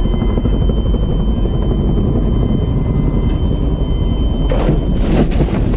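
Robinson R44 helicopter cabin in an engine-off autorotation descent: a steady, loud rumble of rotor and wind noise. About four and a half seconds in, a run of rough scraping bursts begins as the helicopter comes down into the brush and grass.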